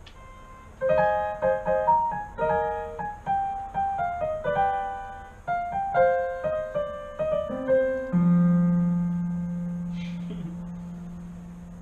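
Roland digital piano played in a short phrase of notes stepping downward, ending about eight seconds in on a held low note that slowly fades.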